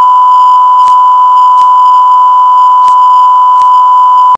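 A loud, steady electronic beep tone held at one pitch, like a test tone. It cuts off abruptly near the end, with a few faint clicks under it.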